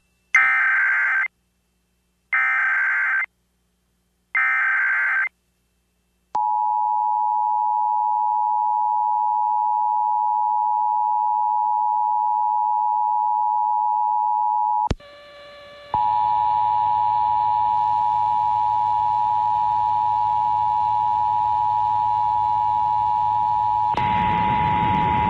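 Emergency Alert System broadcast: three short bursts of the warbling digital header data, each about a second long with a second's gap between them. Then the EAS attention signal begins, a steady two-tone beep. After a brief dropout it continues with other sound mixed underneath, which gets noisier near the end.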